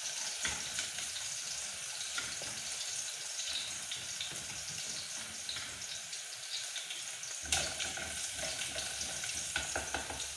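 Chopped onions frying in oil in a stainless steel pot: a steady sizzle with small crackles, and a wooden spoon scraping and tapping against the pot as they are stirred. A sharper knock comes about seven seconds in.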